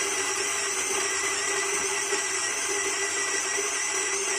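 Electric home coffee grinder with a plastic body running steadily as it grinds coffee beans on its timer setting, a constant whirring whine with a few fixed tones.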